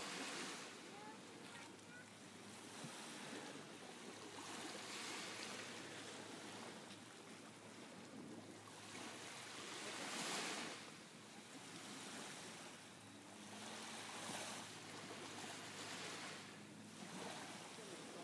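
Small waves lapping and breaking on a sandy shore, swelling and fading every few seconds.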